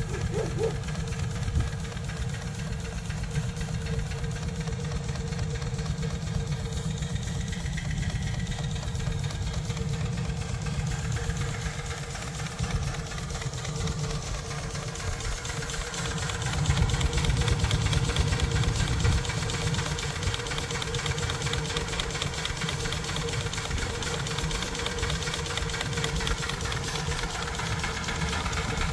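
Small single-cylinder vertical marine steam engine running steadily, an even rapid beat of chuffing and mechanical knocking over a steady tone, swelling a little about two-thirds of the way through.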